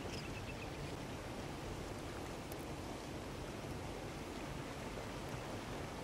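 Steady outdoor background noise, mostly a low rumble, with a quick run of faint high chirps about a second in.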